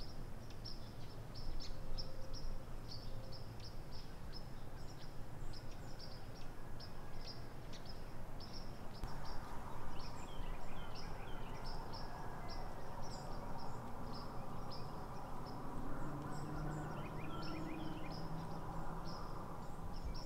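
Small songbird giving short, high chip notes, about three a second, over a steady outdoor hush at dawn. In the second half, quick falling calls from another bird join in a few times.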